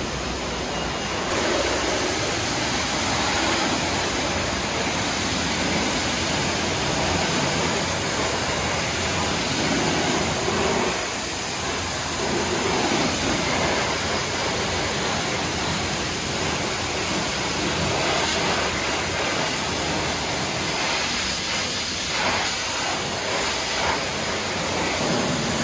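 Self-service car wash pressure-washer lance spraying water onto a car's alloy wheel and wet floor: a steady hiss that starts about a second in.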